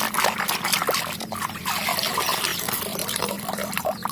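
Water trickling and splashing as a muddy toy is rinsed by hand, with many small clicks and knocks of plastic handling.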